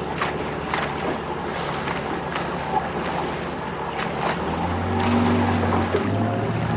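Wind and waves around a boat on open water, with water slapping sharply at uneven intervals. A low steady drone comes in about two-thirds of the way through.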